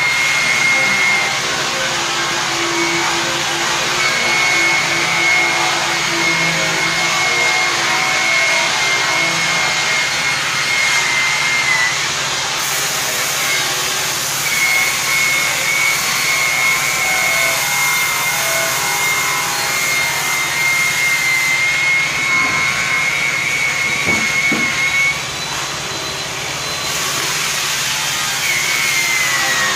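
Electric rotary polisher with a buffing pad running against an aluminum truck grill: a loud, steady high whine over a dense rushing noise. The whine cuts out briefly a few times and returns near the end with a short falling glide.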